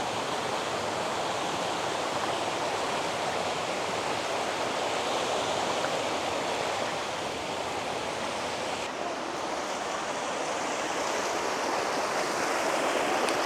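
Rushing water of a mountain creek running over rocks: a steady, even rush with no let-up. The hiss dulls slightly about nine seconds in.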